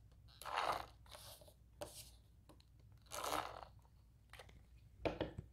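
Adhesive tape runner drawn across cardstock in a few short scratchy strokes, the loudest about half a second and three seconds in, laying adhesive to mount a paper panel.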